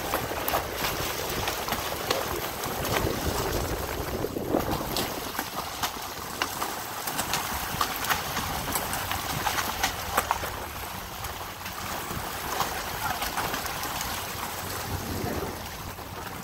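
Shallow seawater sloshing and splashing against shoreline rocks, with many short splashes from a school of fish churning the surface as they feed.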